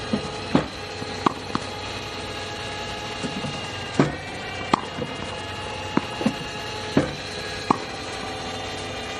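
Tennis balls fired by a small iTennis Pow ball machine, struck back with a racket and bouncing on a hard court: sharp pops and thwacks every second or so, the loudest about three seconds apart. A steady hum runs underneath.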